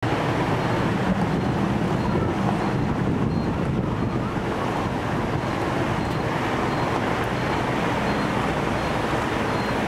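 Steady wash of noise from a flooded street in the rain: motorbikes and a bus running through standing water, their wheels splashing, with a faint engine hum underneath.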